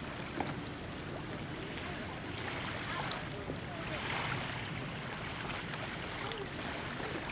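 Steady wash of small waves and water in the shallows, with no single event standing out.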